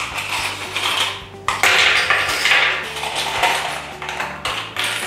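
Small plastic sewing clips and metal hardware rattling and clinking in a clear plastic cup as they are rummaged through and tipped out onto the table, loudest through the middle of the stretch.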